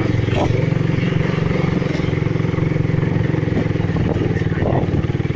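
Motorcycle engine running at a steady, even pitch while the bike is ridden along a rough road, heard from the rider's seat.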